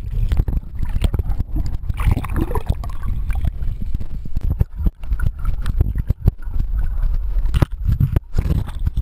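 Sea water churning and sloshing around an action camera as it dips in and out of shallow surf. There is a heavy low rumble with many sharp knocks and splashes of water against the camera.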